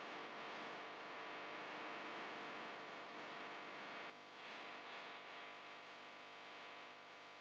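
Whole spices frying in hot oil in a pan: a faint, steady sizzle, dipping briefly about four seconds in.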